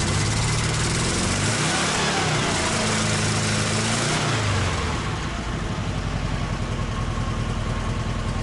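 ZAZ-968 Zaporozhets's rear-mounted air-cooled V4 engine, running on old petrol, revved a few times with its pitch rising and falling, then settling to a steady idle about five seconds in.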